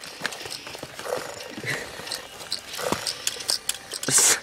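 Small clicks and rustles from handling boxed FurReal toy pets and their packaging on a store shelf, with a louder brush of noise a little after four seconds.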